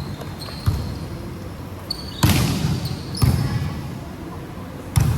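Indoor basketball game: the ball thuds on the court about four times at uneven intervals, echoing in the gym, with short sneaker squeaks on the floor.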